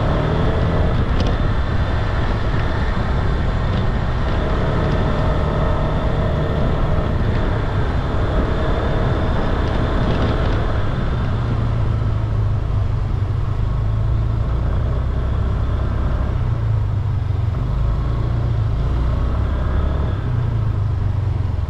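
Rented scooter riding on the road: a steady low rumble of wind on the microphone over the scooter's engine hum, with the engine's tone fading about halfway through.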